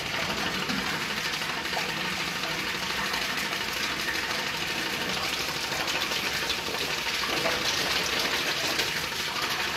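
Water spraying hard from a water pump's hose outlet, partly covered by a thumb, over the steady whir of a 12-volt DC motor driving a belt-driven half-inch pump.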